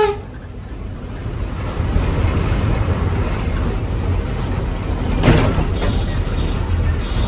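Haryana Roadways bus travelling on the road, heard from on board: a steady low engine and road rumble, with one brief knock about five seconds in.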